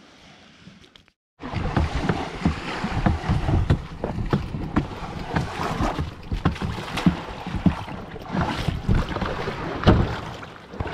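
Low wind rumble on the microphone with frequent knocks and clattering from gear being handled, starting abruptly after a brief silence about a second and a half in.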